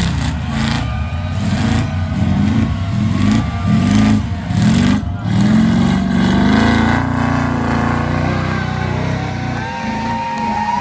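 Off-road truck engine revving hard in a series of short rising bursts, then held at high revs while its tyres churn through deep sand, easing off near the end.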